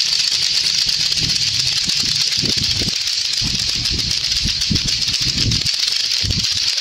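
Several lato-lato clackers, pairs of hard plastic balls on strings, knocking together rapidly and without pause, the clacks of the different players overlapping into a dense rattle.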